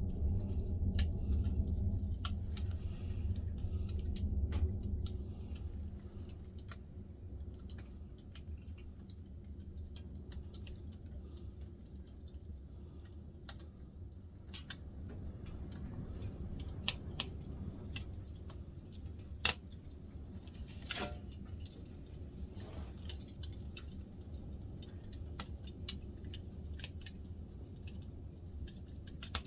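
Wood fire crackling in a glass-fronted stove-fireplace: irregular sharp pops and snaps over a low rumble, with one louder pop about two-thirds of the way through.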